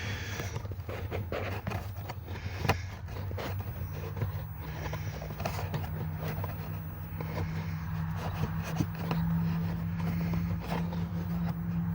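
A steady low mechanical hum, joined about four seconds in by a second, slightly higher hum that grows stronger, with scattered scraping and clicking handling noises over it.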